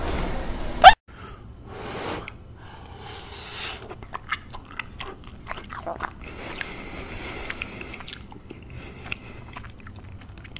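Close-miked eating: chewing and biting with many small clicks and occasional crunches. It is preceded by a second of louder noise that ends in a brief, very loud pitched rise, then cuts off abruptly.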